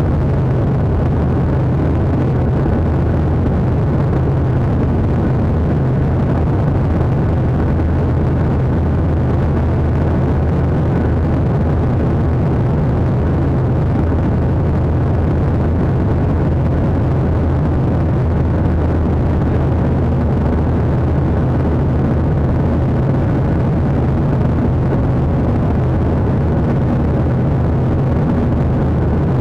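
Jet airliner's engines at climb power and rushing air heard from inside the passenger cabin during climb-out after takeoff: a loud, steady drone with a strong low hum and a faint thin tone above it.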